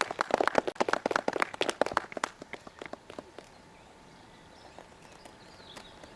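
A small group of people clapping, the claps thinning out and stopping about three seconds in. Then quiet outdoor background with a few faint bird chirps.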